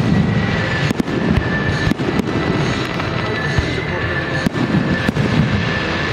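Fireworks display: aerial shells launching and bursting overhead in an uneven run of bangs, about a dozen in six seconds, some coming in quick pairs.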